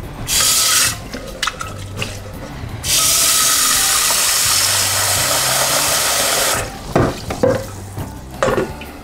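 Kitchen tap running into an empty stainless steel cooking pot for about four seconds as it is rinsed out. A few sharp clanks follow as the pot is handled.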